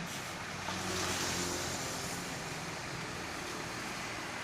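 Roadside traffic noise: a passing vehicle's engine hum over steady road rush, a little louder about a second in.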